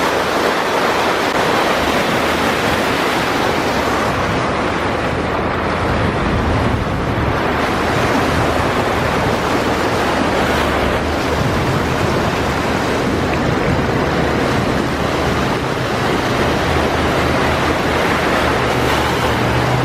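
A loud, steady rush of water noise from heavy rain and floodwater, with a low hum underneath.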